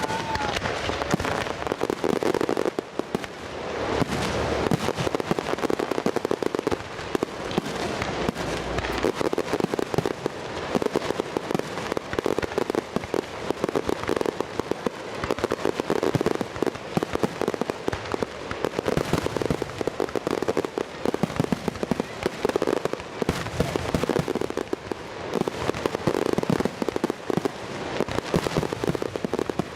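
Fireworks going off continuously: a dense run of crackling pops and bangs, many a second, without a break.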